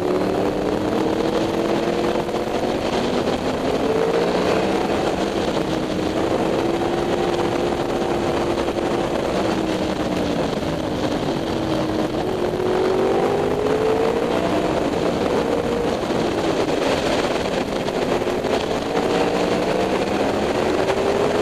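Honda CBR600F3's inline-four engine running under way, its pitch rising and falling with the throttle through a run of bends, over a steady rush of wind.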